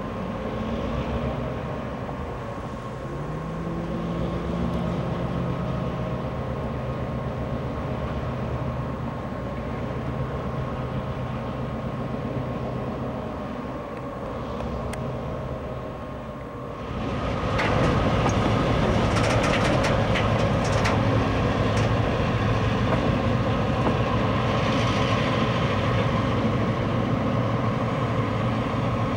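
EMD GP38 diesel locomotives running, their engine note stepping up in pitch about three seconds in. About seventeen seconds in the sound turns abruptly louder and rougher as the train rolls, with a run of sharp clicks and rattles soon after.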